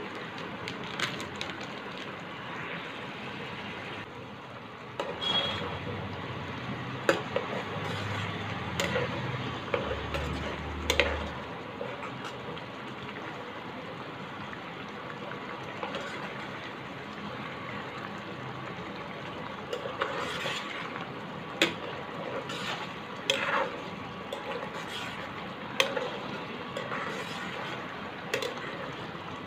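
Steel spoon stirring a thick prawn curry in a pan, with irregular clinks and scrapes against the pan over a steady hiss.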